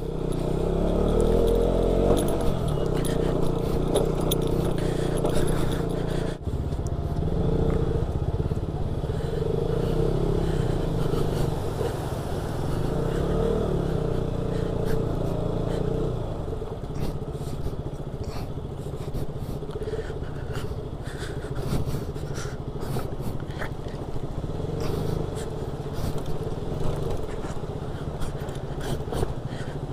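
Motorcycle engine running steadily on a rough off-road track, with scattered clicks and rattles over it; the sound drops out briefly about six seconds in.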